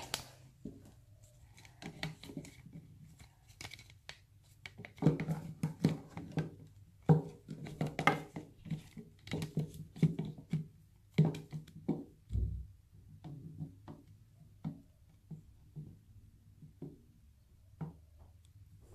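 Brush scrubbing the spa bath, a run of short, irregular strokes, busiest and loudest from about five to twelve seconds in, then sparser.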